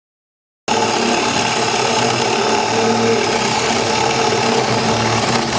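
Milwaukee 2602-20 M18 cordless hammer drill running steadily at speed while drilling a hole, cutting in abruptly less than a second in.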